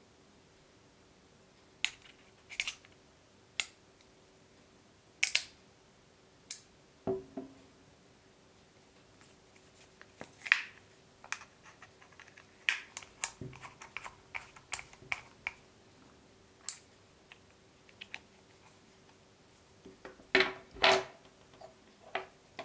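Handling of a DJI Action 2 camera and its small plastic and metal accessories: scattered clicks, taps and light scrapes as the camera is fitted onto a small tripod grip, with a denser run of louder clicks and knocks near the end.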